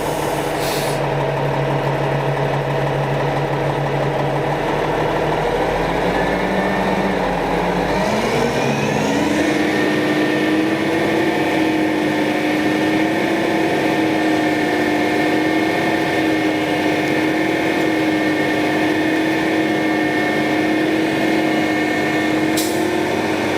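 Pump truck's engine running, revving up about eight seconds in and then holding a steady higher speed as it pumps fluid to drive a dart through a liner hanger assembly.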